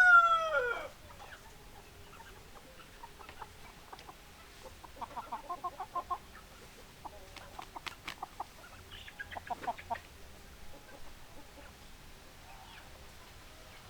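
The last of a rooster's crow, its pitch falling away within the first second, then hens clucking in short, quick runs of clucks.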